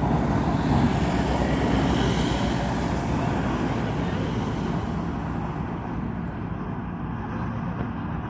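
Boeing 737-800 jet engines heard at a distance, a steady rumble with a hiss that gradually fades out.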